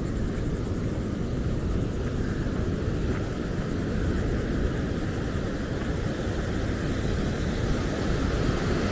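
Heavy storm-driven ocean surf breaking and washing up a sandy beach: a steady rushing roar with a strong low rumble.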